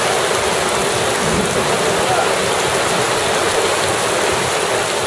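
Heavy rain pouring down onto wet pavement: a steady, dense hiss.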